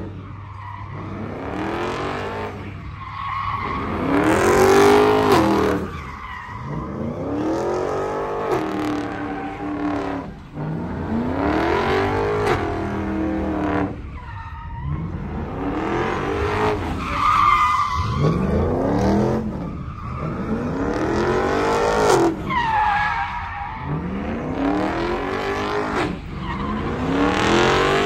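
Chevrolet Silverado pickup doing burnouts and donuts: its engine revs up and drops back over and over, about every two seconds, while the rear tyres squeal and skid on the pavement.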